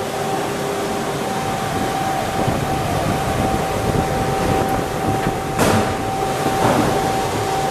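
Steady fan and air-handling noise of a sweating guarded hotplate's climate test chamber, with a high steady whine running through it. About two thirds in come two sharp knocks, about a second apart, as the stainless steel water reservoir inside is handled.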